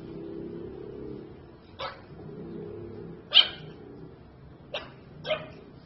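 Pug puppy giving four short barks, the second the loudest.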